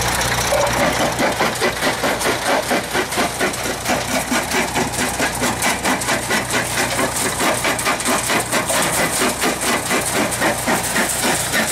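Vintage Lokomo jaw-type rock crusher running and crushing stone: a fast, even, rhythmic mechanical clatter.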